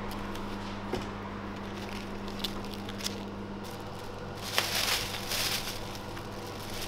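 Thin plastic carrier bag crinkling and rustling as it is handled and held open, starting about four and a half seconds in, over a steady low hum.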